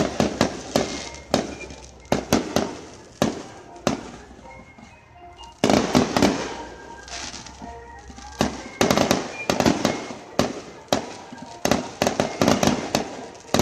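Fireworks display: a rapid series of sharp bangs from shells bursting overhead. There is a lull of about two seconds near the middle, then a dense, fast barrage of bangs in the second half.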